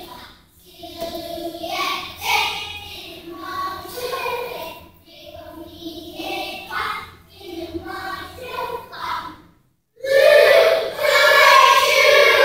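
First-grade children's choir singing a French song together in short phrases, with a brief pause just before a louder passage about ten seconds in.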